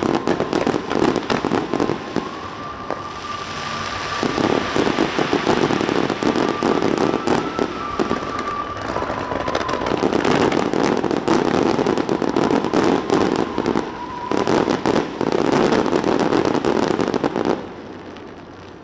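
Fireworks display: rapid crackling and bangs in several dense volleys, easing briefly between them and dropping away about a second before the end.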